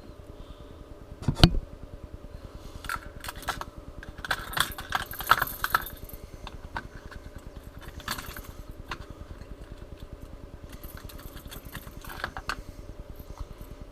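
Fishing lures and their metal hooks clinking and rattling as they are picked through in a plastic tackle box tray, in scattered bursts of small jingling clicks. There is a sharp knock about a second and a half in, over a steady low hum.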